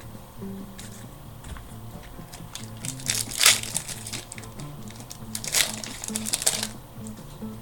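A trading card pack wrapper crinkling as it is torn open and handled, in two loud bursts about three and five and a half seconds in, over background music.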